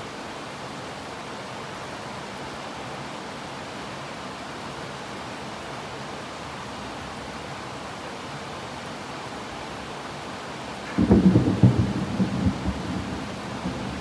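Steady heavy rain. About eleven seconds in, a sudden nearby thunderclap breaks in and rolls on as a rumble that is still going at the end.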